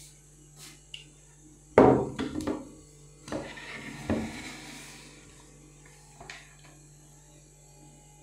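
A few knocks and clatters of kitchen things being handled, the loudest about two seconds in and the last near the end, over a faint steady hum.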